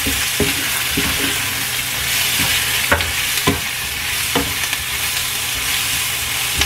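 Chopped onion, bell peppers and spring onion sizzling steadily in oil in a nonstick frying pan while being stir-fried with a wooden spatula. The spatula gives a few irregular knocks and scrapes against the pan.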